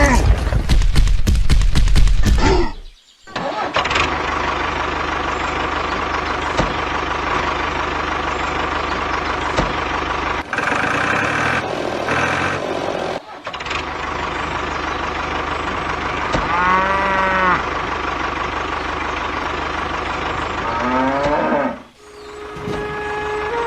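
A cow mooing, once about two-thirds of the way through and again near the end, over a steady engine-like drone. Loud clattering fills the first couple of seconds.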